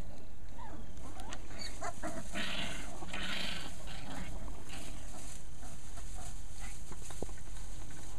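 Husky puppies making short squeaky whimpers and grunts as they scuffle and wrestle in loose straw, with two rustling bursts of straw about two and a half and three and a half seconds in.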